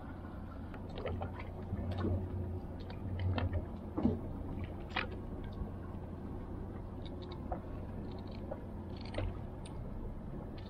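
Scissors snipping the venomous spines and fins off a lionfish: irregular sharp snips, a dozen or so, over a steady low rumble of water and wind.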